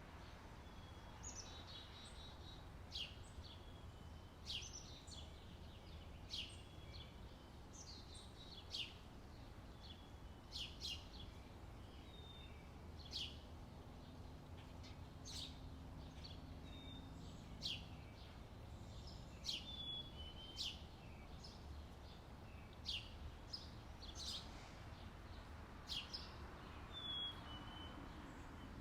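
Birds chirping outdoors: many short, sharp chirps, one or two a second, over a steady low background rumble.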